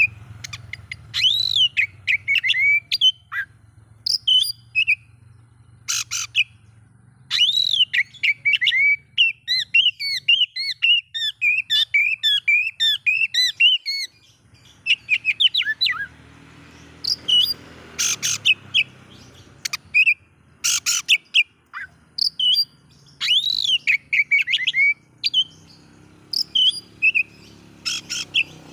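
Oriental magpie-robin (kacer) singing: varied whistled phrases and sharp chirps broken by short pauses, with a long run of quick repeated notes about a third of the way in.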